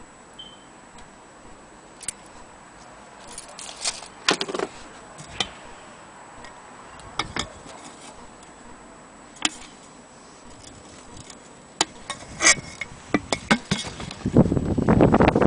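Irregular light clicks and clinks of small metal and glass parts as an antique 400-day anniversary clock is handled, with a dense, rapid, louder rattle starting near the end.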